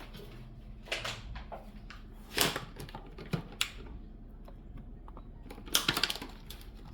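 Several sharp clicks and clatters of hard objects. The first comes about a second in, a few more follow, and there is a quick cluster about six seconds in.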